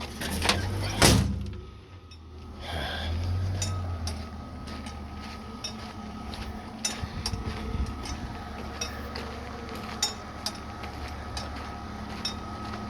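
Scattered clinks and knocks of hard objects being handled and set down, with a loud knock about a second in, over a steady low hum.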